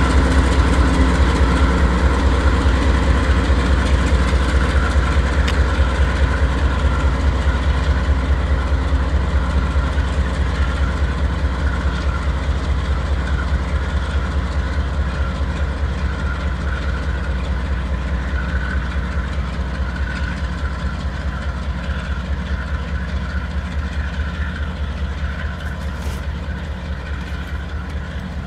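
Canadian Pacific diesel locomotive's engine running with a steady low rumble as the coal train moves slowly by, growing gradually quieter.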